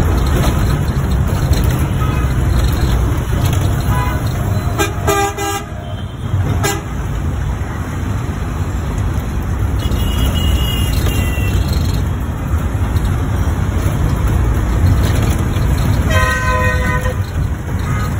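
Busy city road traffic heard from a moving vehicle: a steady low rumble of engines and tyres, with vehicle horns honking several times, a cluster about four to five seconds in, another about ten seconds in, and a longer blast near the end.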